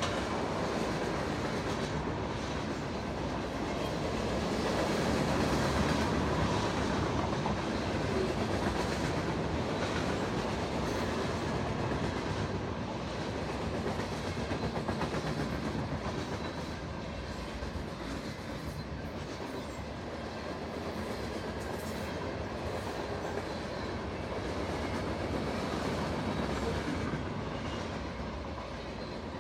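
A mixed freight train of boxcars and refrigerated cars rolling steadily past, with continuous wheel-on-rail noise that swells and eases slightly as the cars go by.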